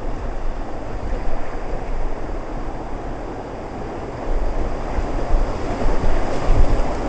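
Whitewater rapids rushing, with wind buffeting the microphone; the rushing grows louder about four seconds in.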